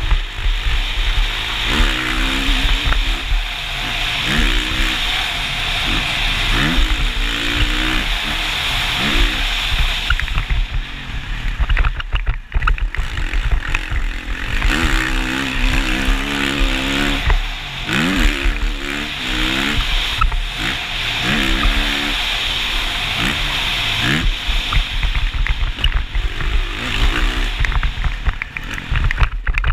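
2019 Kawasaki KX450's single-cylinder four-stroke engine being ridden hard, its revs climbing and dropping again and again through the corners and straights. Heavy wind rushes over the helmet-mounted camera.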